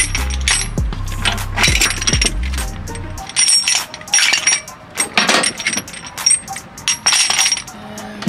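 Steel tie-down chains and ratchet load binders clinking and rattling in a metal toolbox as they are lifted out and set down, in a run of short jangling bursts.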